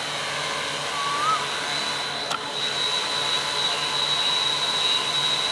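Multirotor drone hovering, its electric motors and propellers giving a steady whir with a thin high whine. A short gliding chirp comes about a second in.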